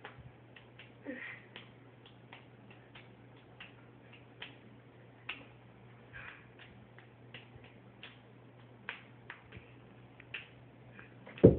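Balls being juggled and caught by hand: a string of short, sharp slaps, about two or three a second at an uneven pace, over a low steady hum. A loud thump comes right at the end.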